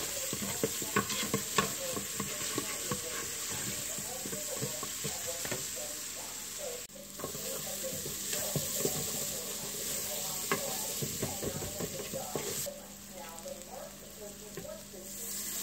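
Chopped onion and garlic sizzling in hot oil in an electric cooker's pot, with a wooden spoon stirring and scraping around the bottom. The stirring stops and the sound drops quieter for a couple of seconds near the end.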